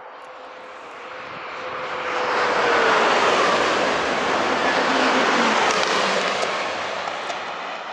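Renfe AVE Series 100 electric high-speed train passing at speed: a rush of wheel and air noise that builds over the first couple of seconds, stays loud for several seconds, then fades. A humming tone drops in pitch as the train goes by.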